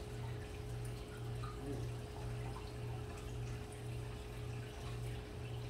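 A steady low hum that dips briefly about once a second, with a faint steady higher tone above it and a few faint ticks.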